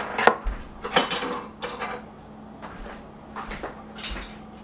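Empty glass jam jars clinking as they are handled and set down on the counter: a few sharp clinks with a short ring, the loudest about a second in and another near the end.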